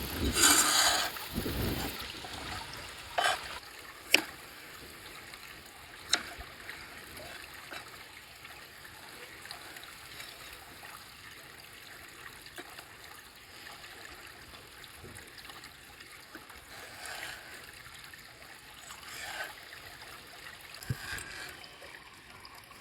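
River water flowing steadily, with a brief loud rushing noise in the first second or so and a few sharp clicks about three, four and six seconds in.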